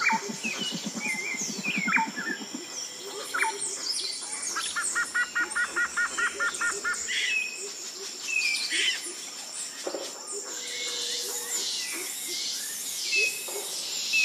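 Birds chirping and calling, with a run of about nine quick, evenly spaced notes in the middle, over a low rapid pulsing in the first few seconds.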